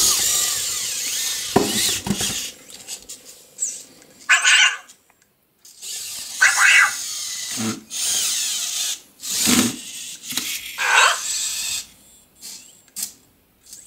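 Anki Cozmo toy robot's small electric motors running as it moves up to a cube and lifts it with its lift arm. Several short electronic chirps from the robot's voice come through along the way.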